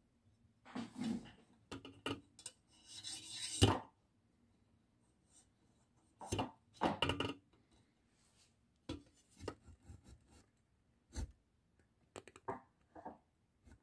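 Handling noise: irregular rubbing and scraping with a few sharp knocks, the loudest a scrape that builds up and ends in a knock a little under four seconds in.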